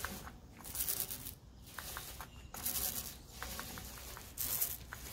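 Small roller dragging through wet roll-on bedliner (Monstaliner) on a truck's rear bumper: three long rasping strokes about one and a half to two seconds apart, with faint ticks between them, while the second coat is laid on.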